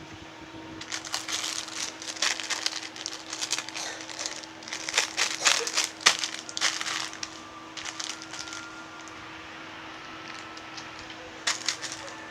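Plastic wrapping crinkling in quick bursts as it is handled, for about six seconds and then once more briefly near the end, over a faint steady hum.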